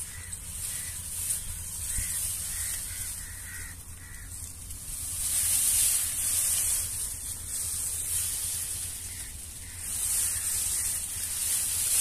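Tall dry grass rustling and swishing as people push through it on foot. It swells twice, about halfway through and again near the end. In the first few seconds a bird calls repeatedly with short, evenly spaced notes.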